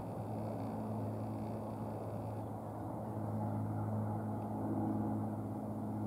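A steady low engine-like hum runs throughout, with a faint, thin high sound over the first two seconds or so.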